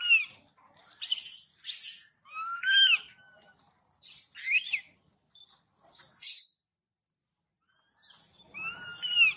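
Baby macaque crying: a string of shrill, high-pitched squealing calls, about one a second, each rising and falling in pitch.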